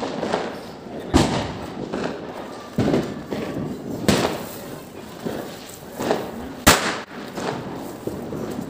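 Diwali firecrackers going off in the streets: several sharp bangs at irregular intervals, the loudest about two-thirds of the way in.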